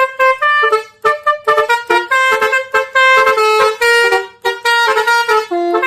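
Telolet bus horn: a multi-tone horn playing a quick melody of short notes, several tones sounding together, repeating the jingle over and over.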